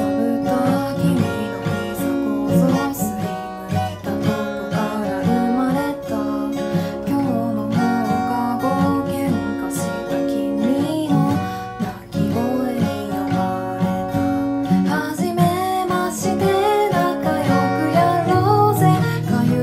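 A woman singing in Japanese while playing her acoustic guitar: a solo sing-along cover with voice and guitar together.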